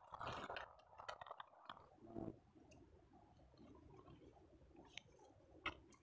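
Faint rustling and crinkling of tent fabric being handled and pulled up, busiest in the first two seconds, then quieter with a few sharp clicks near the end.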